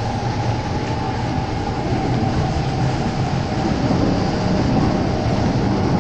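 Metro train running through an underground station: a steady, loud rumble and hiss with a low hum, growing slightly louder in the second half.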